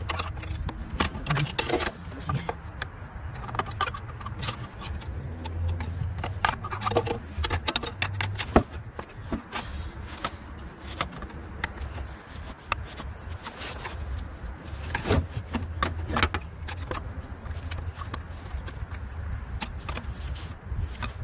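Hand tools clinking and knocking against metal in irregular clicks while working on turbocharger bolts and nuts in a cramped engine bay, over a low steady hum.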